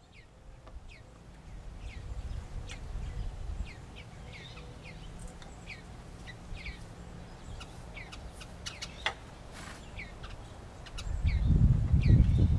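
Bluebirds calling with short, falling chirps over and over. Under the calls is a low rumble that swells near the end and is loudest there.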